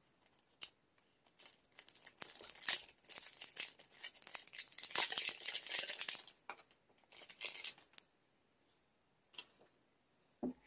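A stack of trading cards being handled: cards slid and flicked against one another, giving a run of quick papery clicks and rustles that dies down after about eight seconds, with a soft knock near the end.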